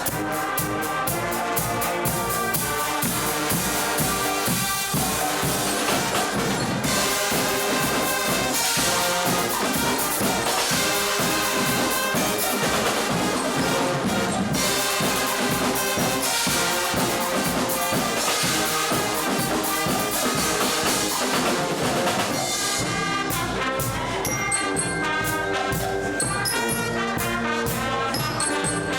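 Guggenmusik band playing: loud brass (trumpets and trombones) over a marching beat of drums and cymbals. Near the end the cymbal wash drops away, leaving the brass and separate drum strokes.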